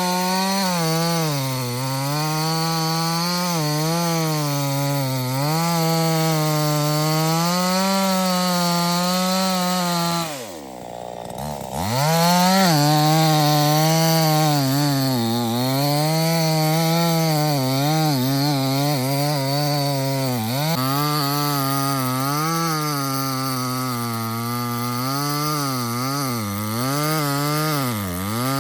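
Chainsaw cutting wood, its engine note wavering up and down as it works under load. About ten seconds in the engine falls off sharply for a second or so, then revs back up and carries on cutting.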